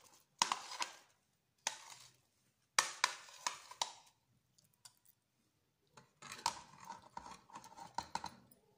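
A spoon scraping banana slices off a plate into a metal pot of fruit and custard, in three short scrapes, then a longer stretch of spoon scraping and clinking in the pot near the end.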